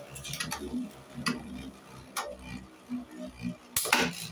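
Beyblade spinning tops clashing in a plastic stadium: a few sharp plastic clicks at irregular intervals, with a quick double click near the end.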